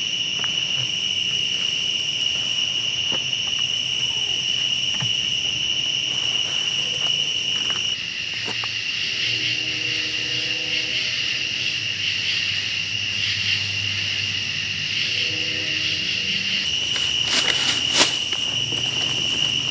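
Steady chorus of night-calling insects, a continuous high trill, over small knocks and rustles of the tripod poles and hammock being handled, with one sharp click near the end.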